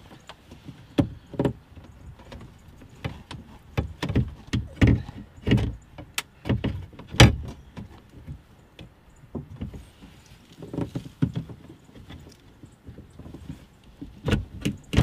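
Scattered, irregular clicks and knocks of hand and socket-wrench work inside a car's front door cavity, as a 10 mm nut is taken off a metal bracket and wiring is handled.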